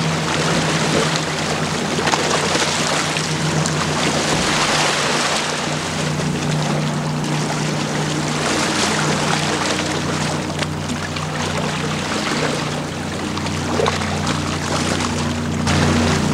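Wind and choppy water lapping against the shore, with a steady low engine drone from the passing bulk carrier underneath.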